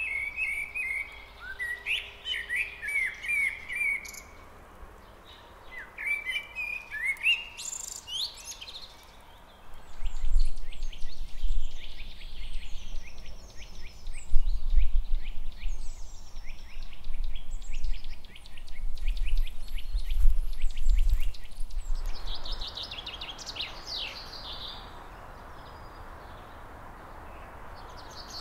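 Birdsong in three recordings. First a common blackbird sings fluty phrases with pauses between them. From about 10 s a Eurasian nuthatch gives fast runs of repeated notes over a low rumble, and from about 22 s a chaffinch sings over a steady hiss.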